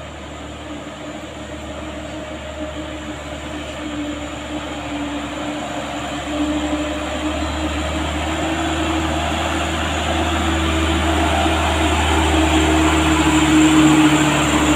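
Diesel truck engine pulling uphill under load, a steady drone that grows louder as the truck climbs up toward and past.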